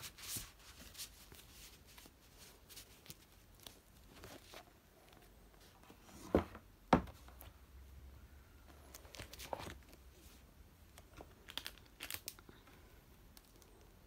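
Paper prints rustling as they are handled, with scattered light clicks of items being set into a cardboard box. Two loud knocks a little past the middle.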